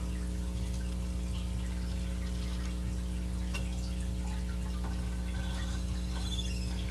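Steady electric motor hum from the peeper prop's drive mechanism as it raises and lowers the skull, with a few faint clicks and small squeaks near the end.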